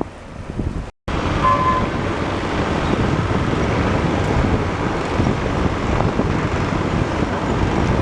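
Heavy construction machinery running with a steady rumble, mixed with wind noise on the microphone; the sound breaks off briefly about a second in, then resumes.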